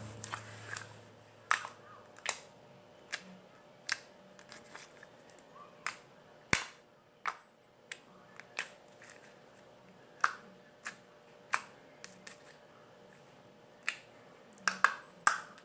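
White slime worked by hand close to the microphone, giving sharp clicks and pops at irregular intervals, roughly one a second.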